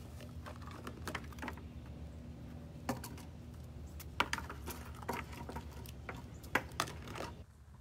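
Irregular light clicks and taps, a dozen or so, the sharpest just after four seconds and about six and a half seconds in, over a steady low hum.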